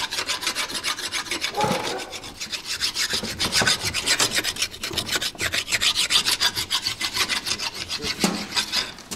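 Rapid back-and-forth rasping strokes of a hand tool scraping or filing, about four strokes a second, steady throughout.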